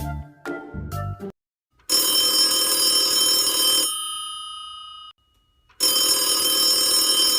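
Old-style telephone bell ringing twice, each ring about two seconds long and fading out afterwards, with a short silence between the rings. A few short thuds are heard in the first second.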